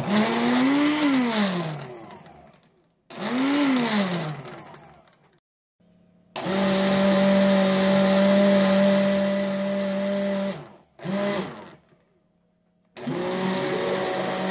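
Countertop blender motor switched on and off five times, puréeing avocado with onion, garlic, cilantro and a little water into guacamole: two short pulses whose pitch rises and then falls, a steady run of about four seconds, a brief blip, and a last run near the end.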